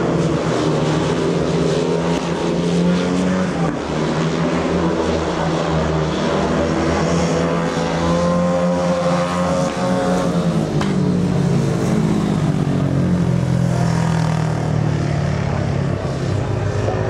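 Speedway motorcycles' single-cylinder 500cc methanol-burning engines running, their pitch rising and falling as the throttles are worked.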